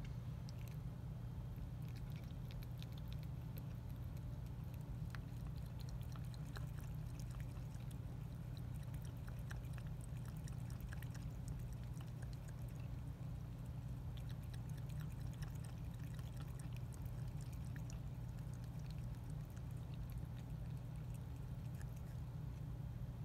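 A domestic cat lapping water from a glass jar, quick irregular wet flicks of the tongue, over a steady low hum.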